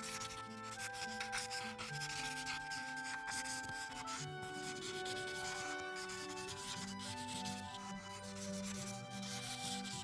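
Ohuhu marker tip rubbing back and forth across paper in repeated strokes as a large area is filled in with colour. Soft background music with held notes plays underneath.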